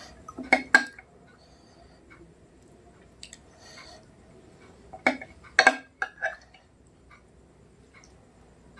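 Eating sounds with sharp clinks of a plate and utensils, in two short clusters: about half a second in and again about five to six seconds in.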